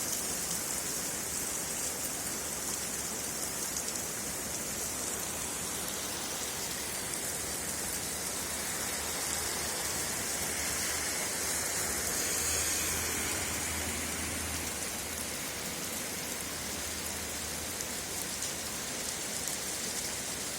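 Heavy rain falling steadily, an even hiss of countless drops.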